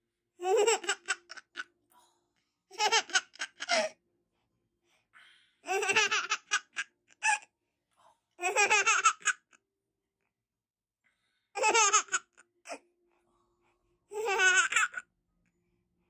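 A nine-month-old baby laughing in six bouts of high-pitched belly laughs, with short pauses between them.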